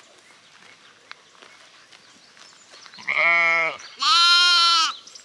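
Sheep bleating twice, about three seconds in and again just after: first a lower call, then a higher one, each lasting under a second.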